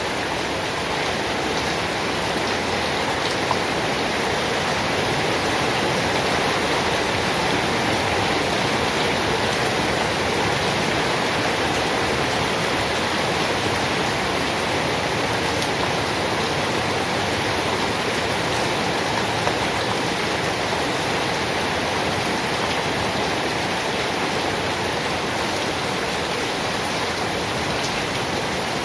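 Steady, heavy rain: a dense, even hiss of falling water with no let-up, and a couple of brief louder drop ticks.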